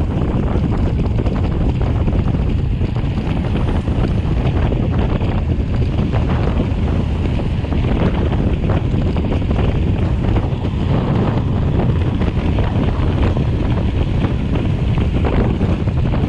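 Loud, steady wind buffeting the camera microphone of a mountain bike rolling fast down a paved road.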